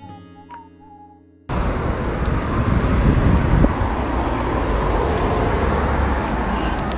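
Light acoustic guitar music that cuts off suddenly about a second and a half in, giving way to loud, steady street traffic noise.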